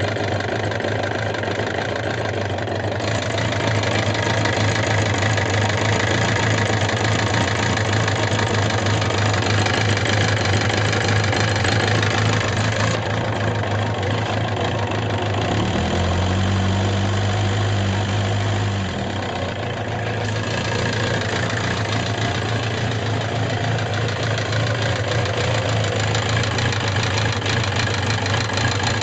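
Suzuki GSX750S Katana's inline-four engine idling with a steady clattering, ticking noise (kata-kata, kachi-kachi). The noise has persisted through replaced rocker arms, camshafts and cam-chain parts and repeated tappet-clearance adjustment, and its cause is unknown. The note changes briefly about halfway through.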